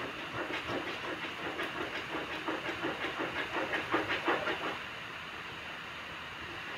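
A fork beats eggs and flour together in a well of flour, making soft wet scraping strokes, about three a second. The strokes stop about five seconds in, leaving a faint steady hiss.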